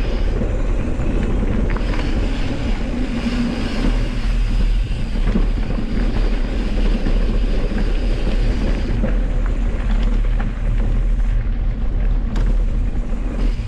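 Mountain bike rolling down a dirt trail, with wind rushing over the microphone: a steady rumble from the tyres, with scattered knocks and clicks from the bike.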